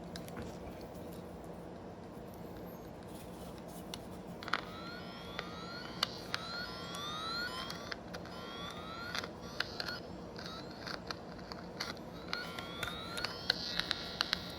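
Handheld electrical tester giving repeated short rising electronic chirps while wires in a truck wiring harness are probed, with scattered light clicks from probe contacts and handling. The chirps start about four seconds in, over a steady low hum.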